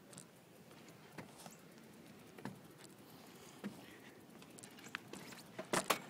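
Bicycle rolling over a wooden boardwalk: a faint steady noise broken by scattered light knocks and clicks as the wheels cross the planks, with a few louder knocks near the end.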